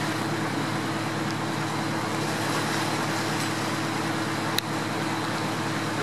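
Fast-flowing floodwater rushing steadily around a submerged car, with a low steady hum underneath and a single sharp click about four and a half seconds in.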